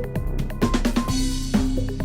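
Background music: an electronic track with a drum kit beat, snare and bass drum hits and a steady bass line.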